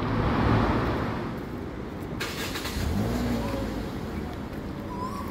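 City street traffic: a car going by, loudest about half a second in, over a steady rumble of road noise.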